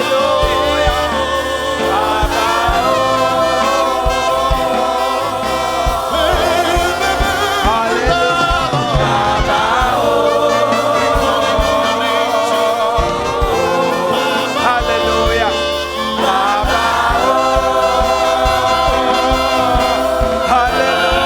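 Gospel worship music: voices singing held, wavering lines over instruments with a steady low beat.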